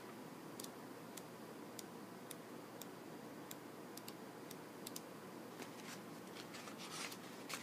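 Quiet room tone with faint, evenly spaced ticks about one every half second, and a brief rustle near the end.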